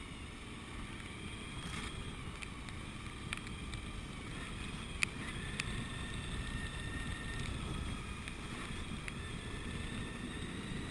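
Suzuki V-Strom 1000's V-twin engine running at low speed on a wet gravel road, mostly covered by a steady wind rumble on the microphone, with faint wavering higher tones and one sharp click about halfway.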